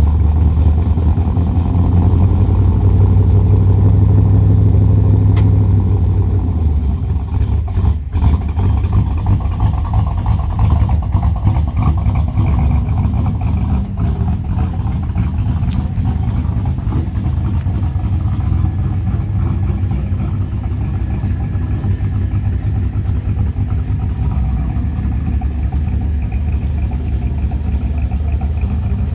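1990 Chevrolet K1500's small-block V8 running through an aftermarket dual exhaust with shorty headers, an X-pipe and Jones Flowpack mufflers: a deep, steady rumble, loudest for the first few seconds, then a little quieter as the truck pulls slowly away.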